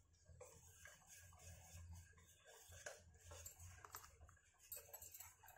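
Faint, irregular ticking and scraping of a wire whisk stirring thin semolina batter in a stainless steel bowl, over a low steady hum.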